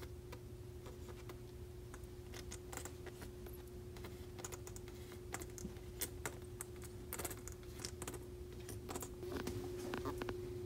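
Steady electrical hum with scattered, irregular light clicks and taps, a little busier about six to seven seconds in and again near the end.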